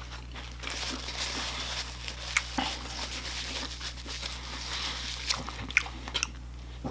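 Close-up eating: chewing with a run of crisp crunching and several sharp clicks of bites.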